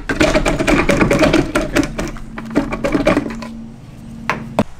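Ratchet wrench clicking rapidly as it loosens the bolts of the brake master cylinder bracket. The clicking stops about three-quarters of the way in, followed by two sharp knocks near the end.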